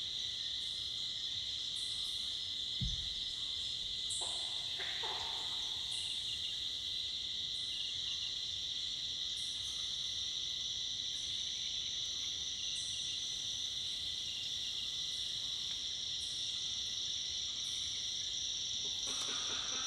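Evening forest insect chorus of cicadas and crickets: a steady, dense high buzzing, with short high chirps repeating about once a second. There is a brief low thump about three seconds in, and a lower, pulsing call joins near the end.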